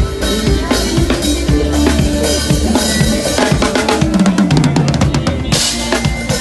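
Drum kit played in a steady groove with bass drum and snare over bass and other pitched instruments. About four seconds in, a rapid fill of quick strokes runs and lands on a cymbal crash.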